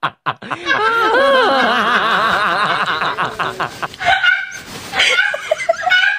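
Rapid, pulsing laughter and snickering, several voices overlapping. About four seconds in it breaks up into shorter, scattered bursts of voice.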